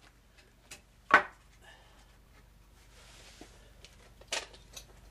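A sharp wooden knock about a second in, then a smaller knock near the end, with a few light clicks: the freshly cut piece of treated 2x4 being handled and set down on a work surface.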